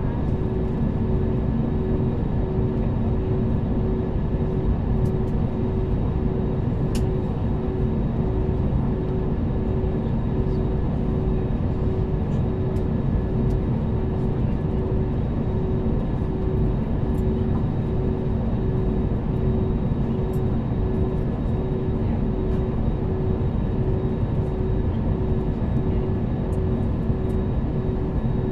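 Steady airliner cabin noise with the engines at idle while the jet waits on the ground for takeoff: an even roar under a low hum that pulses at a regular beat.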